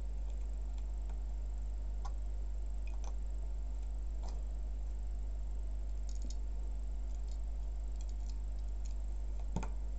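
Plastic LEGO pieces clicking as they are picked up and pressed together: a few light scattered clicks, the loudest near the end, over a steady low hum.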